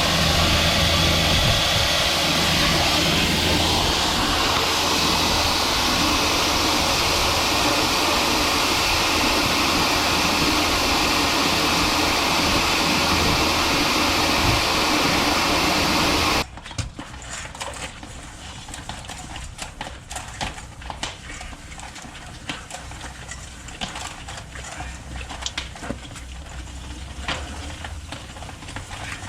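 Engine-driven drain jetter running with a loud steady hiss of high-pressure water, which cuts off suddenly about 16 seconds in. After that there are only scattered light clicks and knocks.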